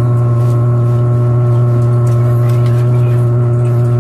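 A loud, steady low hum with several fainter constant tones above it, unchanging throughout, like a motor or electrical hum.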